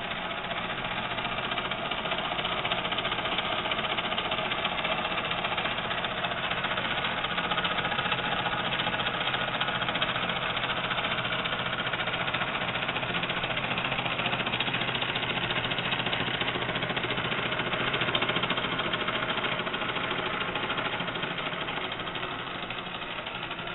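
Weeden No. 123 toy live-steam engine running steadily under steam, its small cylinder and flywheel making a continuous rushing, hissing noise with a faint low hum underneath.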